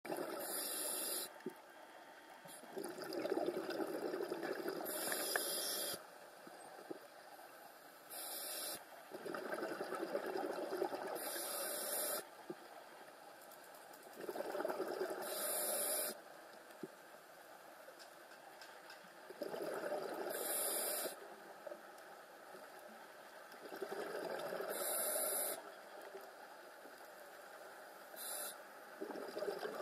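Scuba diver breathing through a regulator underwater: a repeating cycle of hissing breaths and rushing exhaled bubbles, roughly every four to five seconds.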